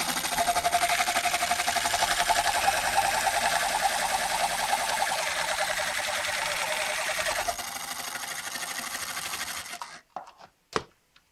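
Small 1000 rpm geared motor of a homemade bench drill running with its bit boring into hard plastic, a fast buzzing whir. It drops in level about seven and a half seconds in and stops abruptly about ten seconds in, followed by a few sharp clicks.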